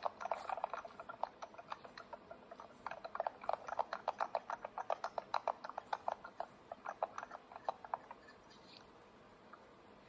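Rapid series of sharp clicks, several a second. It comes in two runs with a lighter patch about two seconds in, and stops about eight seconds in.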